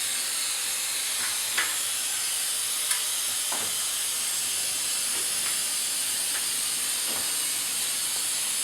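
Aerosol can of Trim-Tex 847 spray adhesive hissing steadily as a coat of glue is sprayed onto plasterboard, with a couple of faint clicks.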